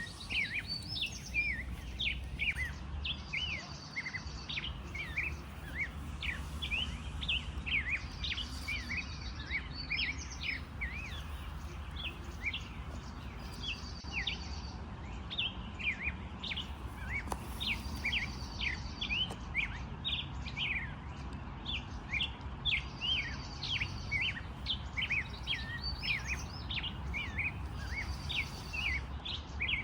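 Several birds singing together, with many short, quick chirps throughout. A higher buzzy trill recurs every four or five seconds, over a steady low rumble.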